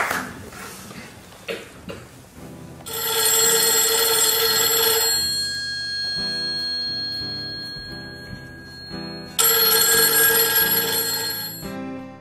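A payphone's telephone bell ringing twice, each ring about two seconds long, with a metallic tone lingering after the first. Quiet music plays underneath.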